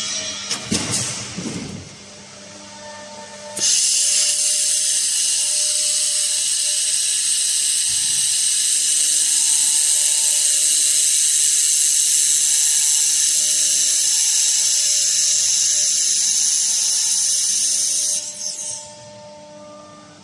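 Handheld fiber laser welder running a continuous weld along a steel sheet T-joint: a loud, steady, high-pitched hiss that starts abruptly about four seconds in and cuts off about fourteen seconds later. Before it, a brief clatter of the metal sheets being handled.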